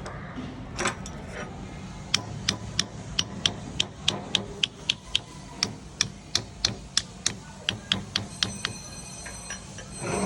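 A run of sharp clicks, about three a second, over a steady low hum.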